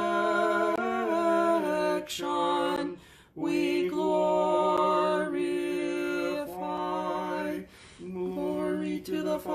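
Unaccompanied voices singing a slow Orthodox liturgical chant in long held notes. The singing breaks off briefly about two and three seconds in, and again near eight seconds.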